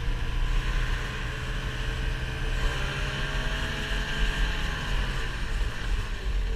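Motor vehicle engine running at a steady speed, its pitch drifting slightly, over a continuous low rumble.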